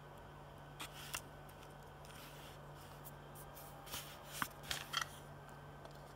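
Faint handling noise from hands on a small circuit board: a couple of light clicks about a second in and a short cluster of clicks and rubs around four to five seconds. A steady low hum runs underneath.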